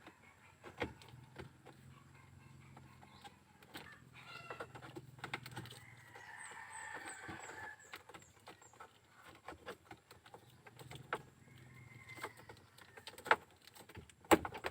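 Scattered light clicks and knocks of hand tools and small parts as a fuse holder and fuse are fitted back into a pickup's wiring, with two sharper knocks near the end.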